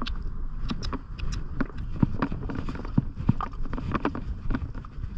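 Pony's hooves striking the ground at a walk, a string of uneven hoofbeats about two to three a second, with wind rumbling on the microphone.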